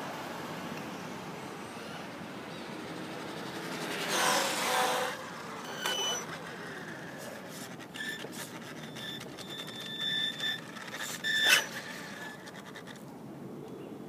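Traxxas E-Revo brushless RC monster truck driving on asphalt: a louder rush of motor and tyre noise about four seconds in, then a steady high electric whine with clicks from about eight seconds, loudest just before it stops. Street traffic hums underneath.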